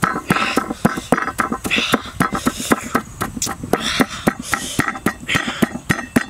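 Pestle pounding and grinding chilli and salt paste in a stone mortar: quick, irregular knocks about four a second, with gritty scraping between them.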